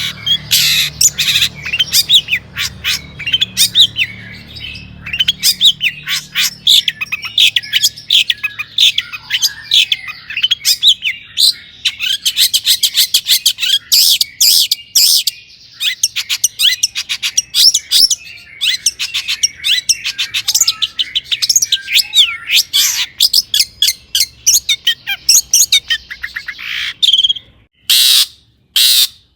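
Long-tailed shrike singing without pause: a fast run of sharp, harsh chattering notes and rapid trills, full of phrases mimicked from other birds, breaking into a few separate bursts near the end.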